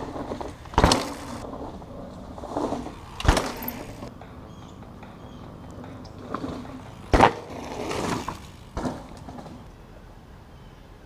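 Mountain bike riding over a leaf-covered dirt trail: tyres rolling through dry leaves and dirt, with four sharp clattering knocks as the bike hits bumps.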